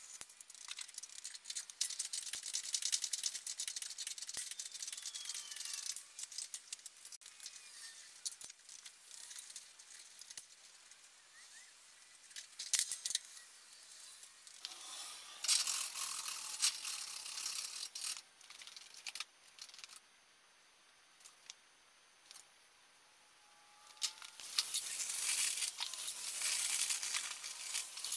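Hand work on a truck's front axle: rattling and clinking of metal tools and parts in several spells, with a short quiet pause. Near the end comes a crinkling hiss of aluminium foil being wrapped around the axle knuckle.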